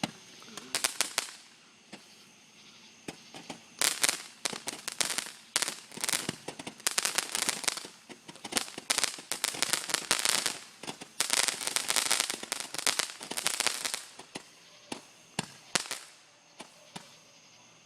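A 100-shot firework going off: rapid crackling bangs in bursts of a second or two for about fifteen seconds, thinning to a few single pops near the end.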